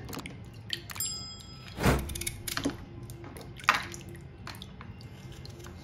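Water sloshing and dripping as peeled arrowleaf elephant ear corms are handled in a plastic bowl of water, with a few scattered knocks, the loudest about two seconds in. A short electronic chime sounds about a second in.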